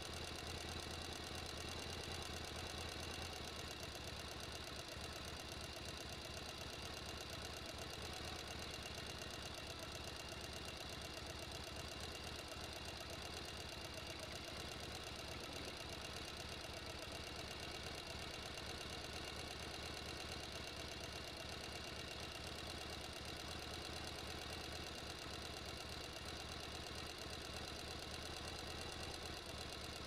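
Small electric motor of a scrap-iron toy concrete mixer running steadily with a fast, even buzz as it turns the drum.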